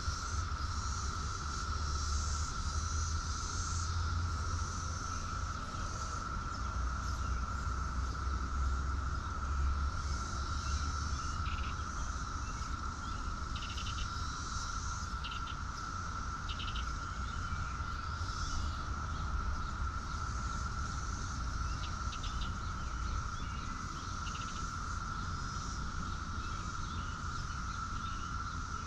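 Outdoor insects trilling: one steady unbroken high drone, with scattered short chirps over it and a low rumble underneath.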